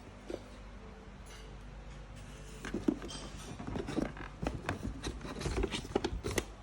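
Handling of a boxed Mac Pro MPX graphics module: irregular knocks, taps and rustling of its packaging, starting about two and a half seconds in, over a low steady hum.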